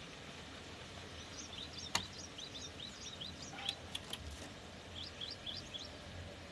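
Cinereous tit (gelatik batu) singing rapid runs of short, high, sweeping notes, one run about a second and a half in and another about five seconds in. There is a sharp click about 2 s in.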